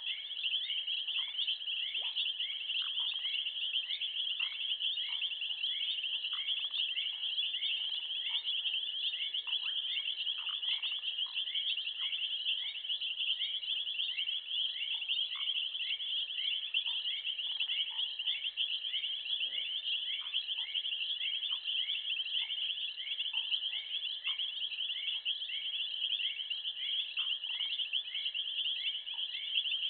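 Insects trilling steadily in a dense, high-pitched chorus, with a second call repeating about twice a second beneath it and scattered fainter chirps.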